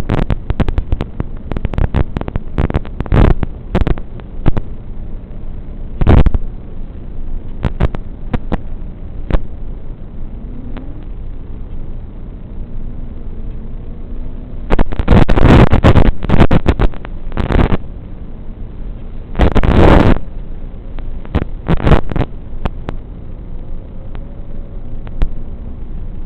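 Wind buffeting the microphone of an FPV drone's onboard camera in flight: a steady rumble broken by many sudden loud blasts, heaviest in two stretches in the second half. A faint motor whine glides up and down underneath.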